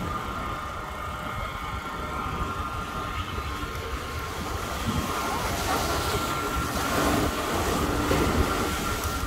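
Bicycle rolling along a concrete promenade: a steady rumble of tyres and wind on the microphone, with a faint steady high whine running through it.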